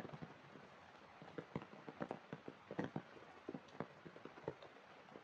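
Heavy rain falling on wet ground and puddles: a steady hiss broken by many irregular drops splatting close by.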